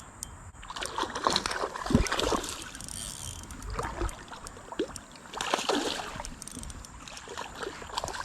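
Creek water splashing and sloshing in irregular bursts as a hooked bass is fought at close range, with one heavier splash about two seconds in.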